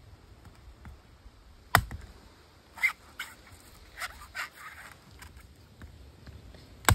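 Two sharp, hard knocks about five seconds apart, the sound of a coconut being struck to crack it open. Shorter, softer knocks and scrapes come in between.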